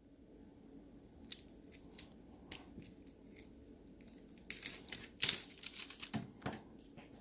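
Faint, scattered clicks and crackles of stripped copper wire and its plastic insulation being handled, coming thicker about four and a half seconds in and easing off by about six and a half seconds.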